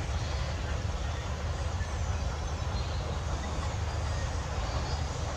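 Kubota M9540 tractor's four-cylinder diesel engine running with a steady low hum as the tractor drives across rough, rocky ground.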